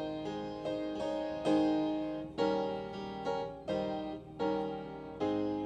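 Slow instrumental closing music of chords on a keyboard instrument, each chord struck and then fading, a new one about every half second to second.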